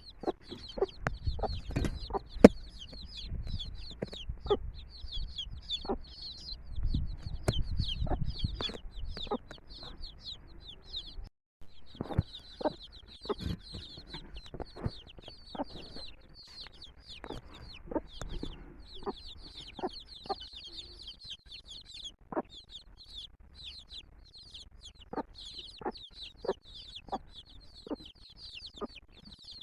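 A brood of chicks peeping busily in many short, high, falling notes, with a mother hen clucking in short sharp calls among them.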